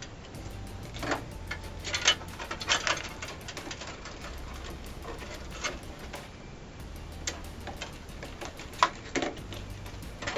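Scattered clicks and knocks of computer hardware being handled and fitted during assembly, with the sharpest ones about two seconds in and again near the end.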